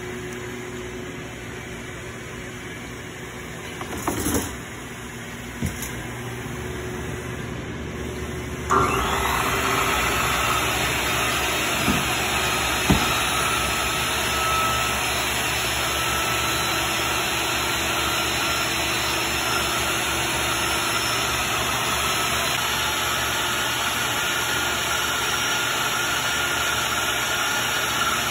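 Vertical panel saw's motor starting up about nine seconds in and then running steadily with a high whine while it cuts a sheet of board. A few knocks come before it starts, as the sheet is handled.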